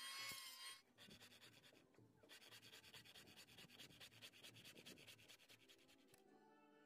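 Handsaw cutting through a wooden board: faint, rasping back-and-forth strokes at about four a second. A steady high whine is heard at the start and stops under a second in.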